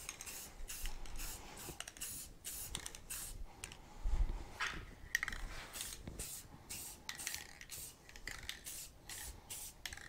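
Aerosol can of Rust-Oleum metallic aluminum spray paint hissing in many short bursts, one after another, as it is sprayed onto metal wheel hubs. There is a dull knock about four seconds in.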